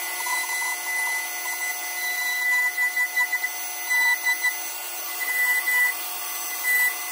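High-speed flex-shaft rotary tool running with a steady high whine while its bit grinds bone, carving out the teeth of an animal jawbone; the grinding swells and dips as the bit bites in and lifts off.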